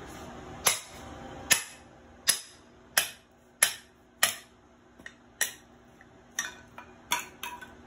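Steel hammer striking the spine of a forged chopper knife, driving the blade down into a wooden post. About a dozen sharp metallic clanks: strong blows roughly every 0.7 s at first, then lighter, quicker taps in the second half.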